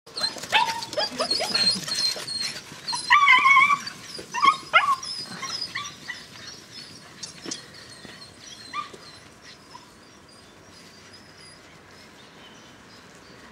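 A litter of nearly nine-week-old white shepherd puppies yelping and whining in many short, high calls, with a few louder yaps about three to five seconds in. The calls thin out after about six seconds and fade to faint background.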